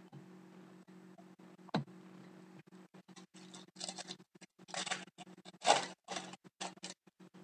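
Foil trading-card pack wrapper being crinkled and rustled by hands, a run of irregular crackles from about three seconds in, after a single click just before two seconds. A low steady hum sits underneath.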